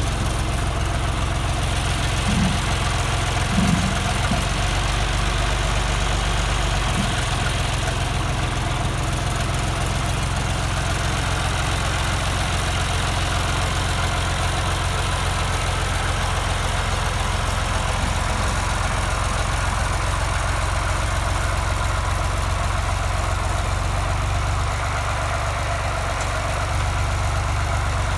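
John Deere 2240 tractor's diesel engine running steadily at low revs while its front loader pushes a heavy vehicle at walking pace.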